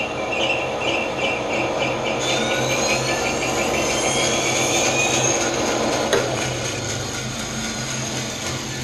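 Bandsaw running with a steady motor hum while its blade cuts a relief cut into a small wooden board, the cutting adding a rising whine from about two seconds in. About six seconds in there is a sharp click as the saw is switched off, and the sound begins to ease as the blade coasts down.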